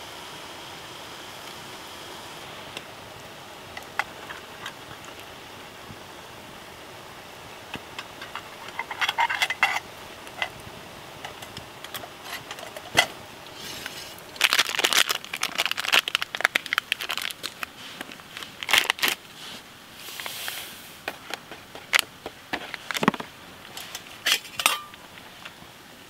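Steady hiss and crackle of a wood campfire at first. From about eight seconds in come clusters of metallic clinks and rattles, with several sharp knocks, as a steel camping pot of hot water is lifted off the fire and handled.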